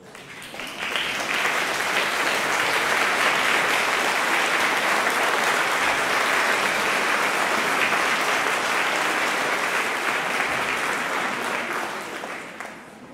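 Audience applauding, swelling in the first second, holding steady, then dying away near the end.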